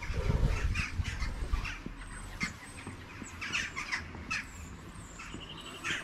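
Corvids calling outdoors: short, harsh calls repeated irregularly, about ten in all. A low rumble fills the first second and a half.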